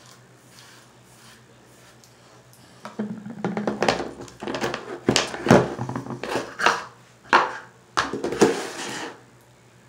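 A plastic jar of hair product being handled on a countertop: a string of irregular knocks, clicks and scrapes of the jar and its lid, starting about three seconds in and stopping just before the end.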